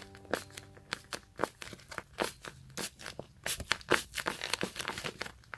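Plastic packaging being handled, with irregular crinkling and tearing sounds.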